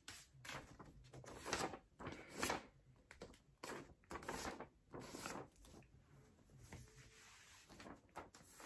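A sheet of printer paper handled and folded by hand, rustling and sliding in a string of short swishes and scrapes as a flap is aligned and creased. The strokes are loudest in the first half and fainter near the end.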